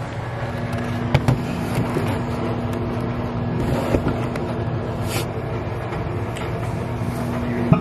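A steady low machine hum on one unchanging tone, with a few short knocks and clicks of the camera being handled and set down.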